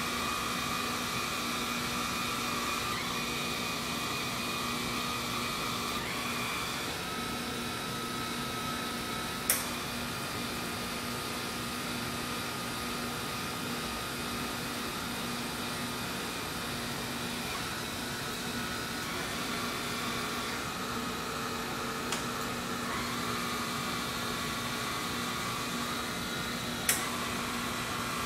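Robotic sculpture's motors running with a steady mechanical whirr and hum, their whine stepping up and down in pitch every few seconds as the arm moves. Two sharp clicks, about ten seconds in and near the end.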